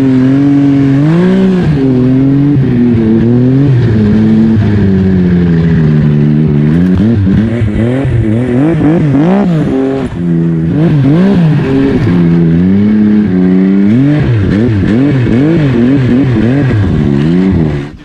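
Snowmobile engine revving under the rider's throttle, its pitch climbing and dropping over and over as the sled accelerates and eases off.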